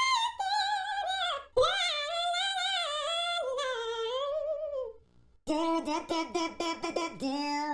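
Comedy sound effect of a very high-pitched, sped-up cartoon voice, its pitch warbling up and down. After a short break about five seconds in, a lower voice follows in quick, choppy syllables.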